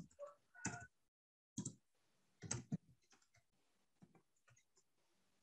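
Faint, scattered key clicks of a computer keyboard being typed on.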